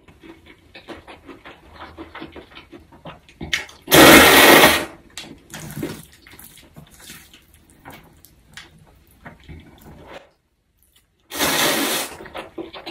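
Mouthfuls of cold spicy mixed noodles slurped in long, loud sucking pulls, one about four seconds in and another near the end, with wet chewing and lip-smacking clicks between.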